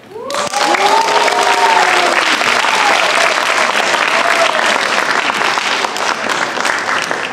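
Audience applause that breaks out abruptly and stays loud, easing slightly near the end. Several long whooping cheers rise over the clapping in the first couple of seconds, and one more comes around the middle.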